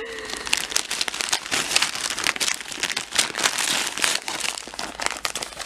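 Wrapping paper crinkling and tearing as a small dog paws and bites at a wrapped present: a steady run of quick crackles and rustles.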